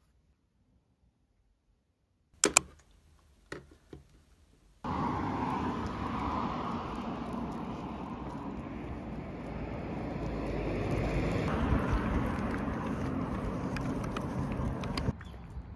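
Near silence broken by a sharp click about two and a half seconds in and a few faint knocks, then from about five seconds in a steady outdoor road-traffic noise that swells a little past the middle.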